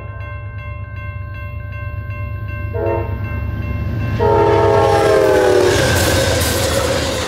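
Amtrak GE P42DC locomotive sounding its multi-chime horn at a grade crossing: a short blast about three seconds in, then a longer blast whose pitch drops as the locomotive reaches the crossing. The horn gives way to the loud rumble of the locomotive and passenger cars passing. Throughout, the crossing's electronic bells ring fast and steadily.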